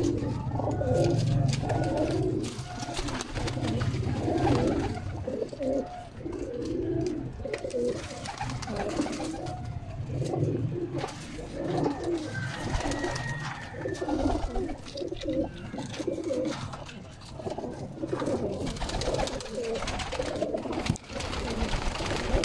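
A flock of Pakistani high-flyer pigeons cooing in their loft, many overlapping coos going on without a break.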